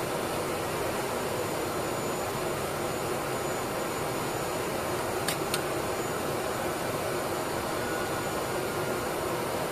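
ATR 72-600's turboprop engines running steadily: an even rushing noise with a faint high-pitched whine. Two short clicks come a quarter-second apart about five seconds in.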